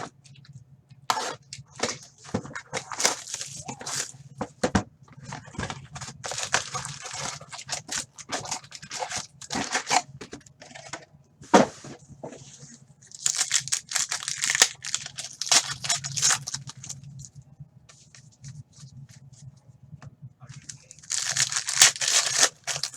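Hockey card pack wrappers being torn open and crinkled, in repeated bursts of tearing and crackling with short clicks of handling between, over a low steady hum.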